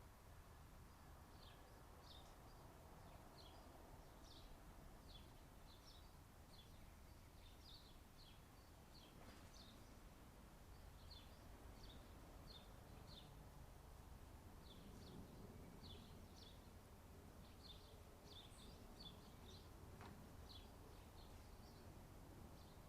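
Small birds chirping faintly, many short high calls repeated irregularly over a low background hum.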